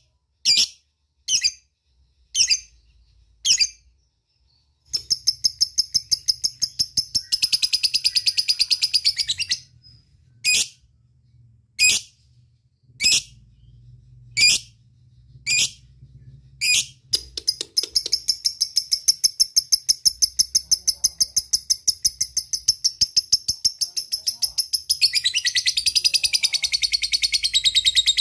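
Lovebird calling: sharp single high chirps about once a second, broken by long fast chattering trills (the 'ngekek'), one at about 5 to 10 seconds in and another from about 17 seconds on, which grows fuller near the end.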